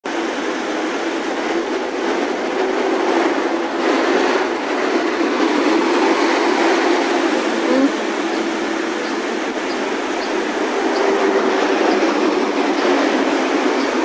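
Steady loud mechanical noise with a low droning hum and no clear break.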